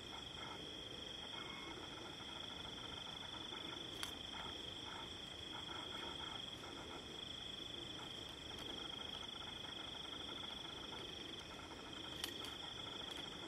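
Faint night-time chorus of crickets: a steady, unbroken high trill, with a couple of faint clicks.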